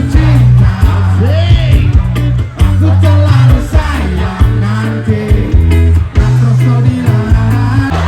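Loud music with a heavy bass line, a steady beat and a sung melody.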